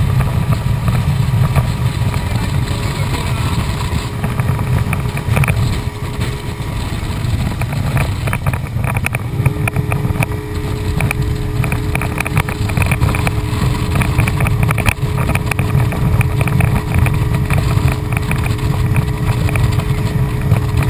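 Motorboat under way, its engine running steadily over a heavy low rumble of hull, water and wind. About halfway through, a steady engine hum comes in and holds.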